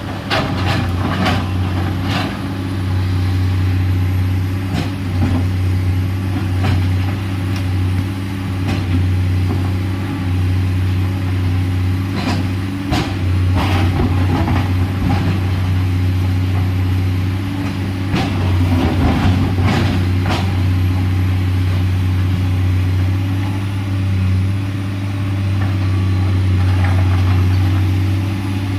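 Komatsu PC210LC excavator's diesel engine running steadily under work, with sharp knocks and scrapes from digging at a few moments, clustered near the start, around the middle and about two-thirds of the way through.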